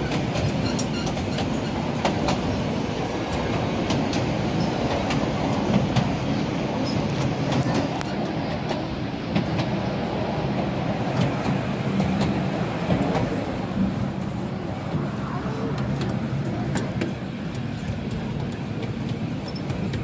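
Narrow-gauge railway carriage rolling along the track, heard on board: a steady rumble with frequent sharp clicks and rattles from the wheels and running gear.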